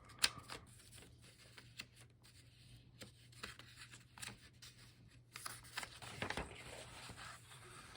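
Paper rustling with scattered light taps and clicks as printed instruction sheets are handled and their pages turned, with a longer rustle a little past the middle.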